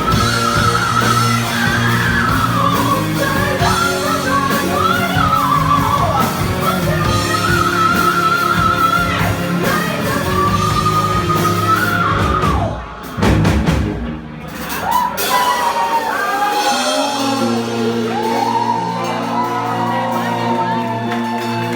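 A rock song with a singer over a full band. The sound drops out briefly about 13 seconds in, then a softer, sparser section follows.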